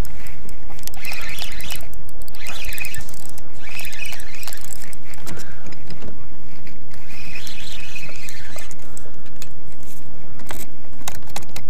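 Steady wind rumble on the microphone. Several short bird chirps come at intervals over the first eight seconds, and a few sharp clicks follow near the end.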